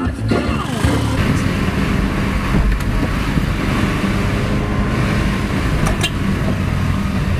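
Car driving along a road, its engine and tyre noise heard steadily from inside the cabin.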